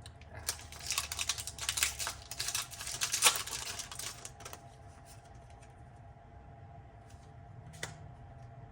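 Foil booster-pack wrapper of Pokémon trading cards being crinkled and torn open: a dense run of crackles for about four seconds, then quieter handling with a single click near the end.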